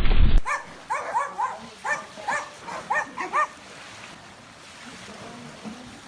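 A loud rushing, rumbling noise cuts off abruptly about half a second in. A run of about ten short, high animal yelps follows over some three seconds, then only faint background.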